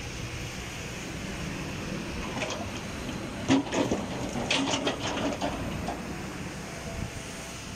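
Kobelco SK210 hydraulic excavator's diesel engine running steadily as the machine swings, with a cluster of sharp clanks and knocks in the middle, the loudest about three and a half seconds in.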